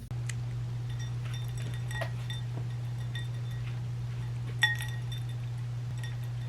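Scattered light clinks, each ringing briefly at the same high pitch, with a louder one about four and a half seconds in, over a steady low hum.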